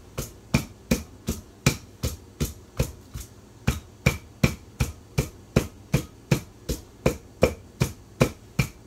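Wooden pestle pounding in a large mortar, steady strikes about two and a half times a second.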